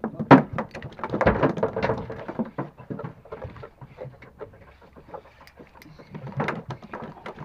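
Irregular clicks and knocks of a spinning rod and reel being handled and cranked as a hooked fish is brought in, loudest in the first couple of seconds.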